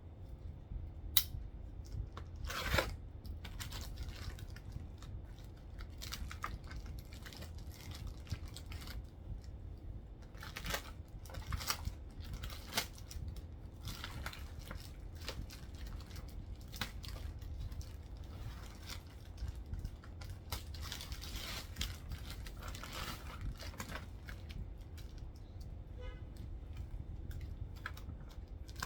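Packaging of a screwdriver bit set being torn open and handled: scattered rustles, crinkles and sharp clicks.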